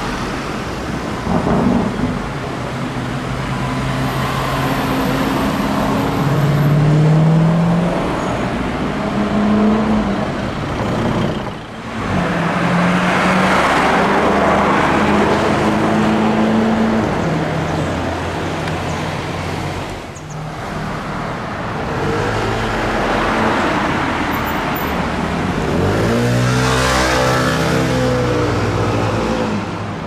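Lamborghini Urus twin-turbo V8 engines accelerating in street traffic. The engine note climbs in steps through upshifts, holds a steadier pull in the middle, and a loud acceleration past comes near the end.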